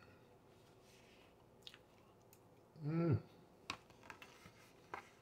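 A man's mouth chewing coconut cream pie: soft eating sounds and a few faint clicks, with a short hummed 'mm' about three seconds in, the loudest sound here.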